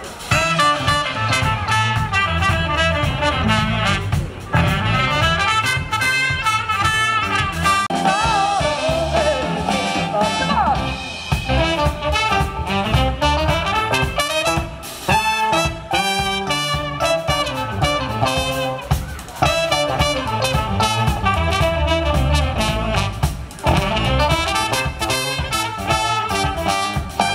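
A live brass-led band playing an upbeat jazz-swing tune, with saxophone and trumpet over drums and keyboard.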